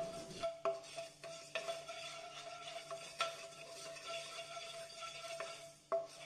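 Wooden spatula stirring fenugreek seeds around a dry, hot nonstick pan: a light scraping with scattered small taps and clicks as the spatula and seeds hit the pan.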